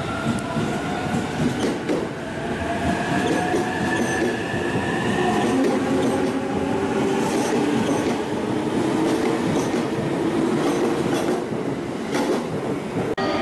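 E259 series Narita Express electric train pulling away and accelerating past, its traction motors giving a rising whine. A few wheel clicks over rail joints are heard as the carriages pass.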